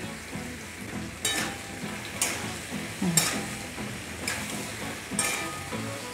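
A metal spatula scrapes and turns chopped vegetables in a metal karai, about once a second, over a steady sizzle of the vegetables frying in mustard oil.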